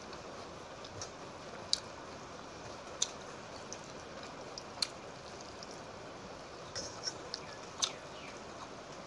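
Wet eating sounds of panta bhat, rice soaked in water, eaten by hand: squelching as the hand works the watery rice, and half a dozen sharp wet smacks and clicks of eating over a steady hiss.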